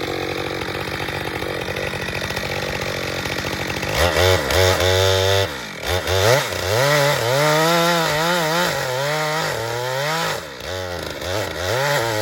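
Two-stroke chainsaw idling steadily, then revved hard about four seconds in and run into the cut on a dead ironbark trunk, its engine pitch rising and sagging again and again as the chain loads in the timber.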